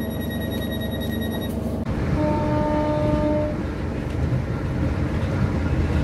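Class 317 electric multiple unit at the platform: a steady high door-closing warning tone sounds over the train's low rumble as the doors shut, then stops. About two seconds in, a short steady tone of a second or so sounds over the continuing rumble.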